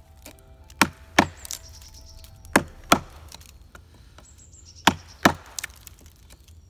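A wooden baton striking the spine of a fixed-blade knife, driving the blade into an old dead log. Six sharp knocks come in three pairs, the two blows of each pair about a third of a second apart.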